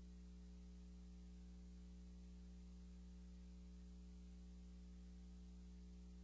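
Near silence: a faint, steady electrical hum with hiss and no sound from the scene, the empty track of a silent film transfer.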